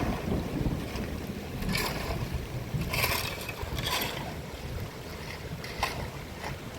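Wind buffeting the microphone in a heavy rainstorm, a steady low rumble of wind and water with a few short hissing bursts about two, three and four seconds in.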